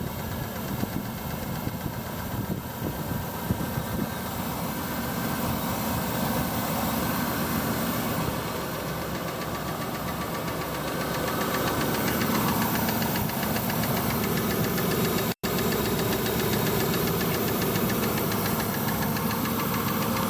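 Mitsubishi Pajero V6 petrol engine running steadily, with a rapid, even knocking from the driver-side rocker cover. The knock began after the rocker cover and spark plug well gaskets were replaced, and its cause has not yet been found. The sound cuts out for a moment about fifteen seconds in.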